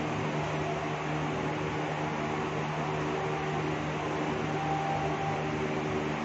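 A steady low hum with an even hiss over it, unchanging throughout, like a fan or air conditioner running in a small room.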